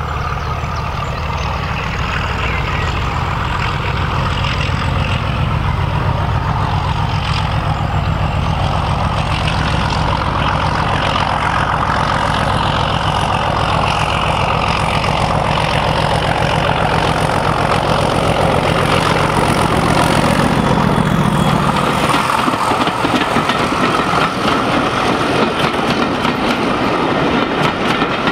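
Class 31 diesel locomotive's English Electric V12 engine running under power as it approaches and passes, its exhaust smoking; about 22 seconds in the engine note drops away and the coaches' wheels run past on the track.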